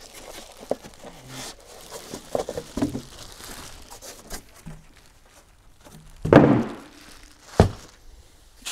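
Plastic wrap crinkling and styrofoam packaging rubbing as a plastic-wrapped remote box is lifted out of its foam packaging, with small knocks, then a loud thud about six seconds in and a sharper knock a second later as the box is set down on a table.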